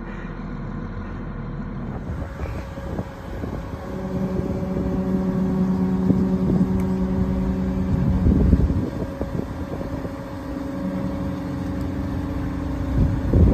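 Heavy-equipment diesel engine working under load. Its note comes up strongly about four seconds in, eases back around eight seconds and builds again near the end, where a loud knock is heard.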